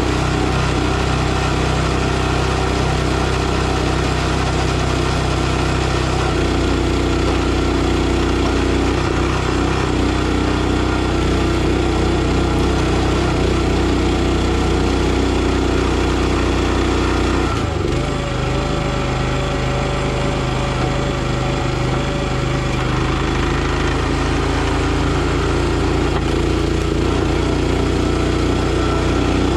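Small gasoline engine of a NorthStar 37-ton log splitter running steadily while splitting firewood; a little past halfway its note changes for a few seconds and a thin whine comes in.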